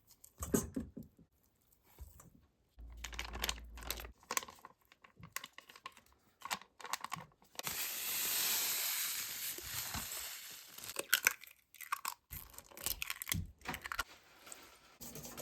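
Kitchen handling sounds from baking prep: a string of clicks, taps and rustles, with a steady hiss lasting about two and a half seconds around the middle.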